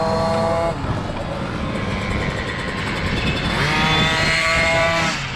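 Dirt bike engine working the throttle on a motocross track: it backs off about a second in, revs up again after about three and a half seconds, holds high, and eases off near the end, over a steady low rush of wind on the microphone.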